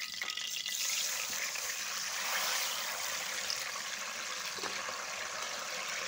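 Hot jaggery water being poured into hot ghee in a metal karahi, a steady rush of pouring and sizzling as the fat bubbles up, thickening about a second in.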